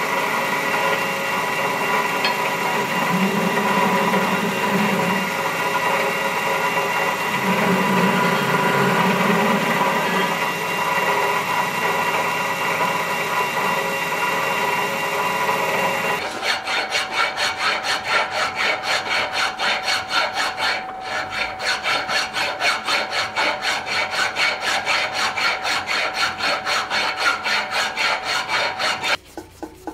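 A power tool motor runs steadily with a rubbing, grinding noise. About halfway through it stops abruptly, and a hand tool takes over, scraping back and forth at about four even strokes a second; the strokes turn fainter near the end.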